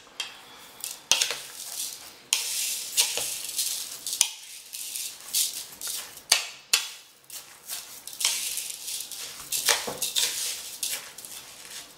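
Uncooked jasmine rice grains rattling and rustling as bare hands knead them into raw ground beef in a mixing bowl, with many irregular sharp clicks as grains and fingers hit the bowl.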